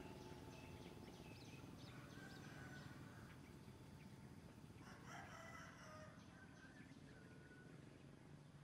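Faint outdoor bird calls: short high chirps throughout, with a longer, fuller call about five seconds in.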